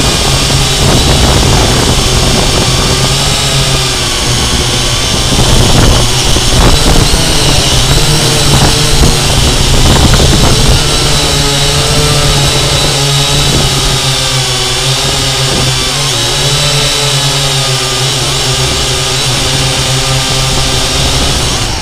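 Syma X8C quadcopter's four brushed motors and propellers running loud and close, heard from the camera mounted on the drone itself. The whine wavers up and down in pitch as the throttle and direction change in flight.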